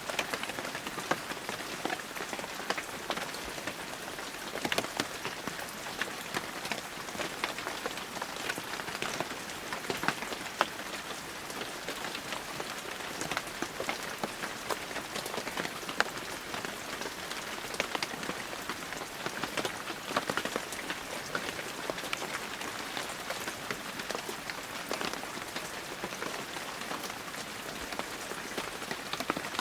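Heavy rain falling steadily, a dense hiss with many sharp individual drop hits scattered through it.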